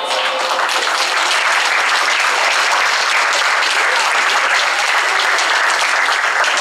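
Guests applauding, a dense steady clapping that follows the end of the song.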